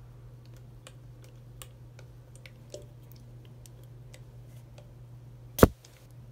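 Light, irregular clicks and taps of long fingernails on a perfume spray bottle's metal pump cap and glass, with one much louder sharp sound about five and a half seconds in.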